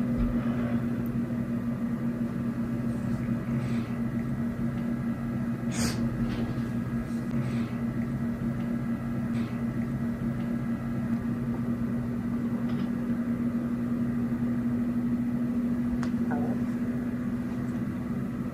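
Power Mac G4 Digital Audio running just after power-on: a steady hum from its cooling fans and spinning hard drives, with a few faint clicks.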